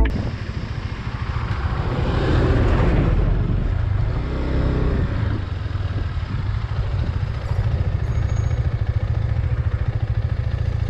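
KTM 390 motorcycle's single-cylinder engine running steadily while riding, a low rapid thrum with wind and road noise. A brief rush of noise comes about two seconds in.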